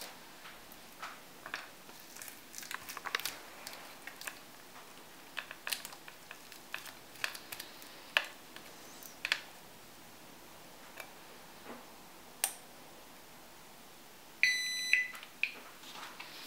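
Sharp plastic clicks and taps of hands placing a LiPo battery pack on a 4WD robot car chassis and pushing its connector plugs together. Near the end comes a short electronic beep, heard twice in quick succession.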